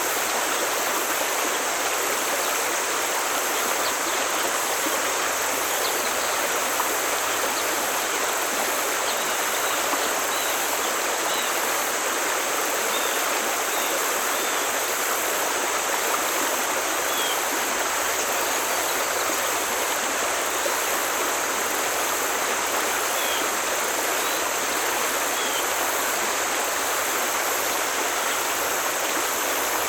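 Forest stream flowing, a steady continuous rush of water.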